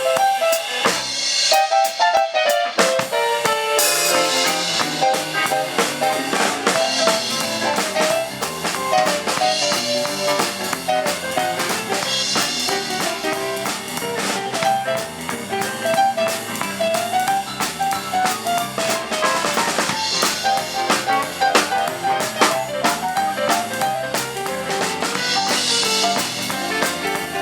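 Live band playing a tune during a sound check: a drum kit with snare and bass drum keeps a steady beat under a moving melody line.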